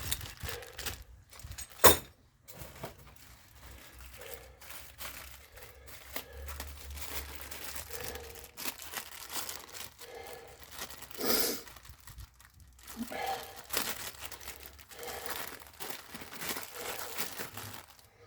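Packaging crinkling and rustling as small parts are handled and unpacked, with a sharp knock about two seconds in.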